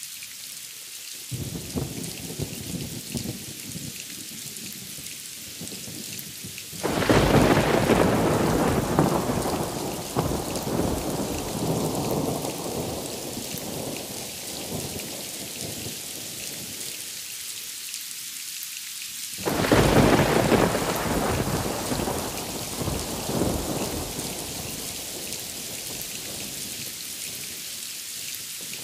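Steady rain with thunder from two close lightning strikes. After some low rumbling, a sudden loud crack comes about seven seconds in and rumbles away over about ten seconds. A second sudden crack about twenty seconds in rumbles off more briefly.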